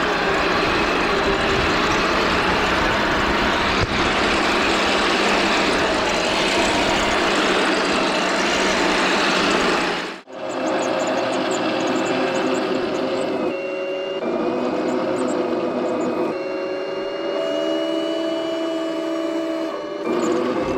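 M1A2 Abrams RC toy tank running, its small electric drive motors and gearing making a continuous mechanical noise. The sound cuts out sharply about ten seconds in, then returns as steady whining tones that step up and down in pitch.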